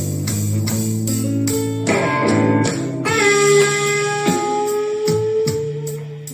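Blues backing track led by guitar, plucked chords over a steady beat, with one long held note starting about three seconds in and fading out near the end.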